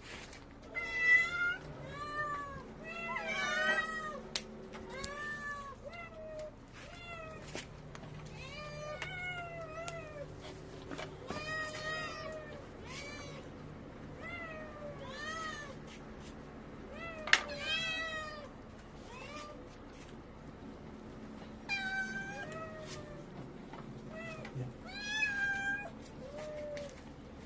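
Street cats meowing over and over, hungry for the wet food being handed out. The calls often overlap, as from more than one cat, and there are a few sharp clicks, the loudest about two-thirds of the way in.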